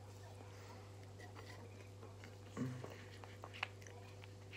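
Faint chewing and wet mouth clicks from someone eating a chicken nugget, over a steady low hum. About two and a half seconds in there is a brief low vocal sound, like a short hum through the mouthful.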